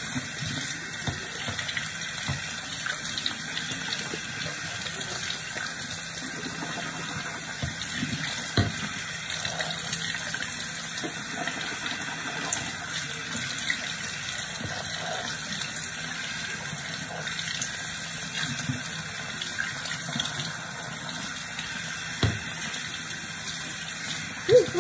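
Water running steadily from a tap into a sink, with a few short knocks.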